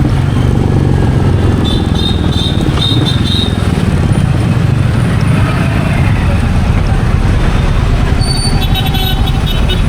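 Royal Enfield Meteor 350's single-cylinder engine running on the move, a steady low exhaust note with road and wind noise. Twice, short high beeps sound over it: about two seconds in and again near the end.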